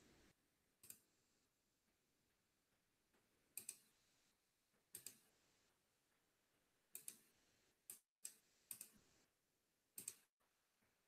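Faint computer mouse clicks, mostly in quick pairs, every second or two over near silence.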